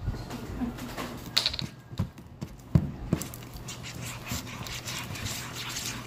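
Homemade Elmer's glue slime being kneaded and worked by hand: a few sharp knocks in the first three seconds, then steady wet squishing and crackling as it is stretched and squeezed.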